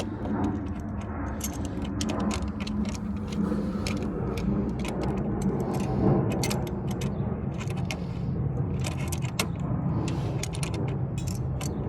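Irregular metal clinks and taps of a hand tool working a hose clamp on a radiator hose, over a steady low hum.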